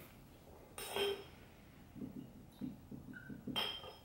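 Light clinks and knocks of small hard objects being handled on a tabletop. There is a sharp clink about a second in, soft knocks after it, and a brief ringing clink near the end.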